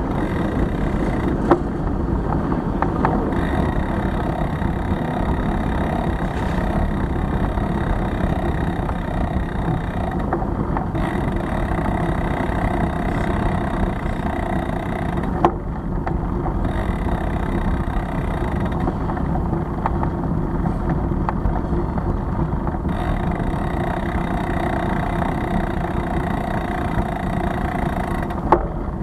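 Steady rumble and wind noise of a bicycle ride picked up by a bike-mounted camera, rolling over brick paving amid city street traffic. Sharp knocks from bumps come three times: near the start, about halfway, and near the end.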